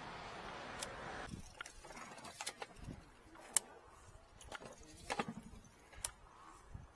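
Scattered light clicks and rattles from a sewer inspection camera reel and its frame being moved over pavement. A steady rushing noise cuts off about a second in.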